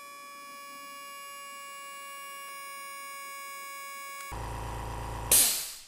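Oil-free air compressor filling its tank. For the first four seconds it is a steady high whine of several even tones, the run being fast-forwarded. Then comes its normal motor hum, and about a second later a loud hiss that fades away as the motor shuts off with the tank full.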